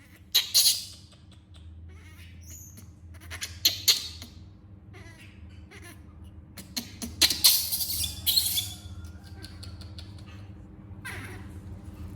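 Baby monkey squeaking in several short high-pitched bursts, with rustling, over a faint steady low hum.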